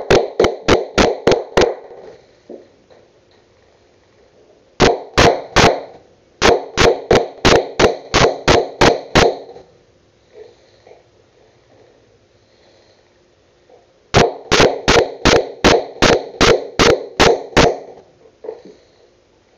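Hammer driving a nail into wooden trim in quick blows, about four a second, in three runs with short pauses between. Each blow is sharp with a brief ring.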